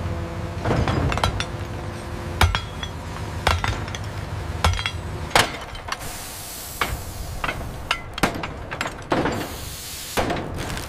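Hammers striking steel in a dozen or so irregular, ringing metallic clanks as hot rivets are hammered into iron girders, with a brief hiss about six seconds in.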